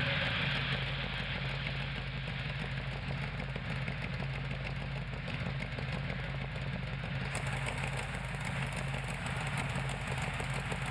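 A 377 cubic inch small-block Chevrolet V8 in a race car, idling steadily on a chassis dyno just after its revs have dropped back. A light rattle joins in about seven seconds in.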